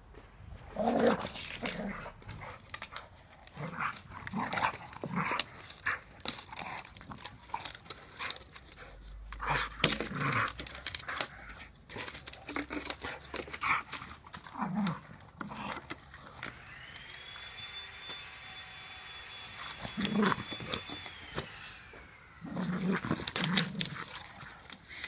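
A small terrier-type dog wrestling a dead tree branch, vocalising in short bursts while the wood scrapes and knocks on the ground. A steady high whine rises in the background a little past halfway and falls away a few seconds later.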